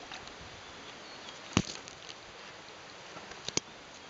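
Two sharp knocks about two seconds apart, the second a quick double, over a steady outdoor background hiss.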